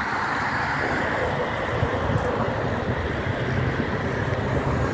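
Steady traffic noise: an even hiss with a low, uneven rumble underneath.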